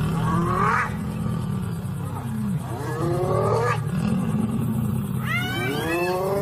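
Lions growling low and continuously while spotted hyenas' rising, whooping cries break in three times, the longest and loudest run near the end: the sound of a hyena clan confronting lions.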